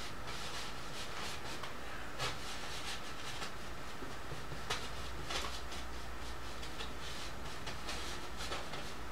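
Faint scrubbing of a bristle brush laying oil paint onto canvas, with a few soft taps, over a steady room hiss and low hum.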